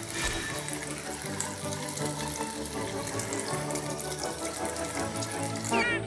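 Water running from a tap into a bathroom sink, under background music with a steady bass line; a short sliding tone sounds near the end.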